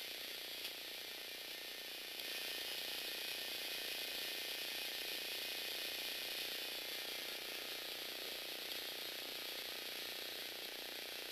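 Small Lego Technic electric motors whirring steadily as they drive plastic spur-gear reduction trains. It gets louder about two seconds in, with a light click just before.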